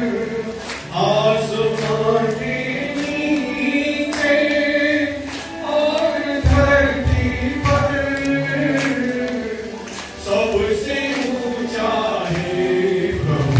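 A congregation singing a hymn together in unison, in long held melodic lines, with a regular sharp beat underneath.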